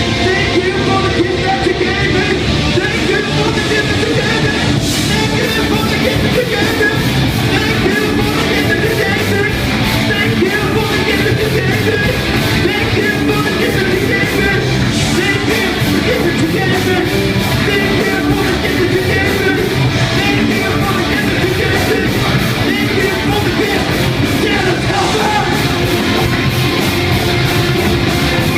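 Live rock band playing loudly, with distorted electric guitars and drums, and shouted singing over the top. A steady drum beat becomes prominent about five seconds in.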